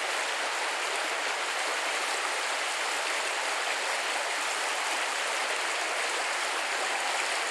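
A small forest brook rushing over rocks in shallow rapids, a steady hiss of running water.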